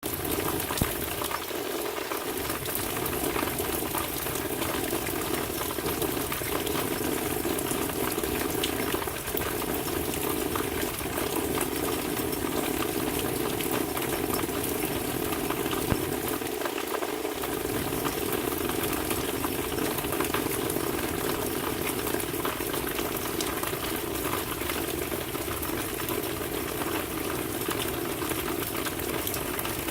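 Steady rain falling, an even hiss of many drops with an occasional louder single drop tick.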